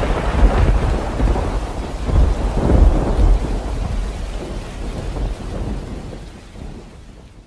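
Thunder rolling over steady rain, the rumble swelling a few times before the storm sound fades out toward the end.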